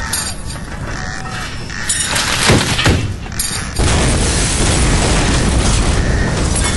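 Simulated earthquake sound effects: a continuous heavy rumble with two loud crashes about two and a half and three seconds in. Then, from about four seconds, a louder, steady rumbling as a building collapses.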